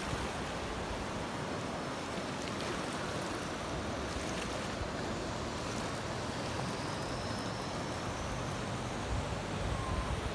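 River water rushing steadily past a rocky bank: an even, unbroken rush of flowing water.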